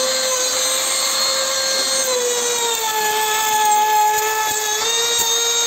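Crown CT11023 710-watt trim router running at full speed, its motor giving a loud, steady high whine with overtones while the bit cuts a decorative profile along the edge of a wooden board. The pitch dips slightly about two seconds in as the bit takes load and lifts a little near the end.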